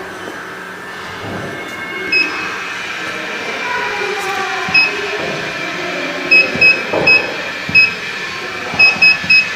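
Touchscreen control panel of a modified atmosphere packaging machine beeping at each finger press: nine short high beeps, a few spaced out and then in quick runs near the end. A steady machine hum runs underneath.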